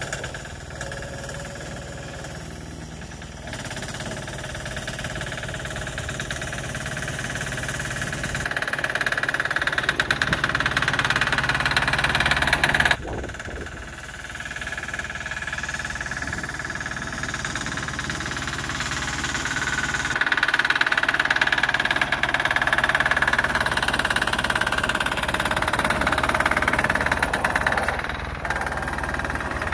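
Sears garden tractor's 6 hp single-cylinder air-cooled diesel engine running steadily, growing louder around ten seconds in, dropping suddenly about thirteen seconds in, and swelling again from about twenty seconds.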